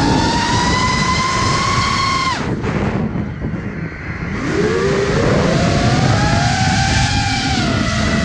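FPV quadcopter's motors whining in flight over a rush of air noise; a little past two seconds in the throttle is cut and the whine drops away, then about four seconds in the throttle comes back and the whine rises again, wavering in pitch.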